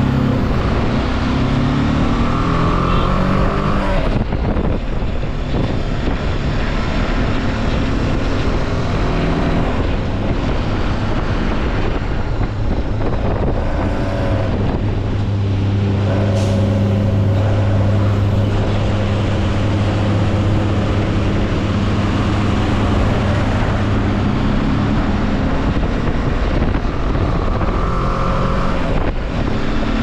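BMW G 310 GS single-cylinder motorcycle engine running under way, its pitch climbing and dropping through several gear changes and holding steady for several seconds around the middle, with wind and road noise rushing over the microphone.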